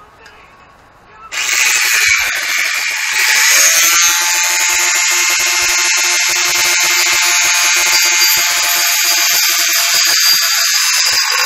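Electric angle grinder starting about a second in, then running steadily at a high-pitched whine while it cuts into a metal tube.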